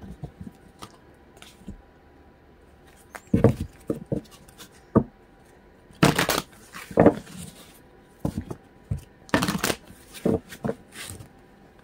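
A deck of oracle cards being shuffled and handled: scattered soft taps and rustles, with two louder shuffling swishes, one about halfway through and another a few seconds later.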